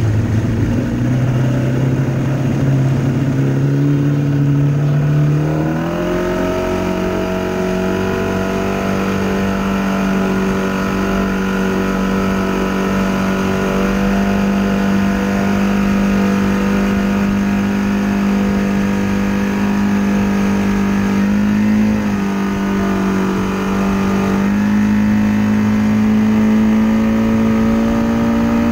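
Rebuilt Mercury 115 outboard motor running hard under tow load, its pitch climbing as the throttle opens about six seconds in, then holding steady. It dips briefly about three-quarters of the way through and climbs again soon after.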